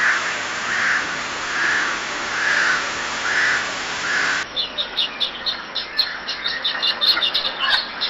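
Birds calling. A bird repeats a call about once a second, six times, over a steady hiss. Then, after an abrupt cut about four seconds in, a different recording has birds chirping quickly and high, several chirps a second.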